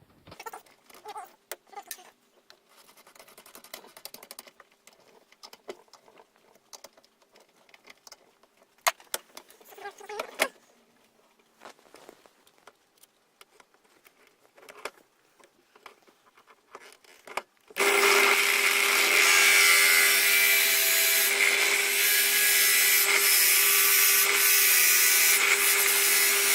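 Scattered clicks and knocks of a wooden workpiece being set up in a bench drill. About 18 seconds in, the bench drill starts and runs steadily at full, loud level, boring the pipe bowl into a wooden blank with a Forstner bit. It stops right at the end.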